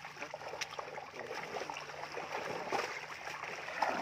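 Shallow muddy pond water sloshing and splashing as a net full of fish is gathered in by hand, with many small, irregular splashes.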